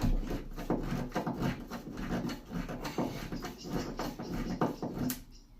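Plasterboard wall anchor being turned into a drilled hole in drywall with a hand screwdriver: irregular scraping and creaking as its thread cuts into the plasterboard. The sound stops about five seconds in, as the anchor seats flush.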